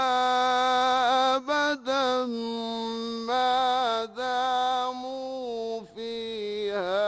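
A male Qur'an reciter chanting in the melodic Egyptian mujawwad style. He holds long notes with ornamented melismatic turns and pauses briefly for breath a few times.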